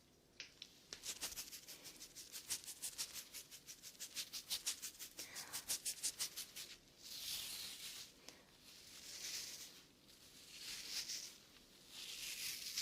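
Close-miked ASMR trigger sounds: a run of quick, light taps, about six a second, for several seconds, then four slow swishes about two seconds apart.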